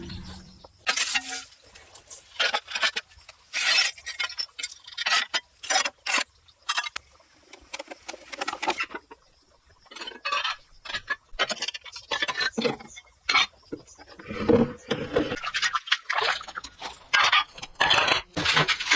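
Hand tools at work, scraping and knocking in short irregular strokes with brief pauses between them.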